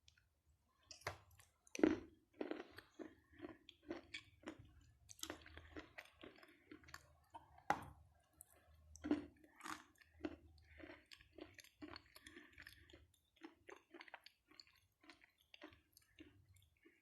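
Close-up chewing of a soaked piece of edible chalk-like mineral ('Ldinka'): irregular crisp crunches and wet mouth sounds, with louder bites about two seconds in and again around eight and nine seconds.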